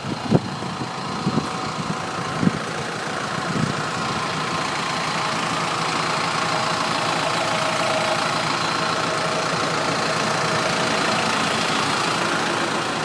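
An engine idling steadily, getting a little louder about four seconds in and then holding even. A few faint knocks sound in the first few seconds.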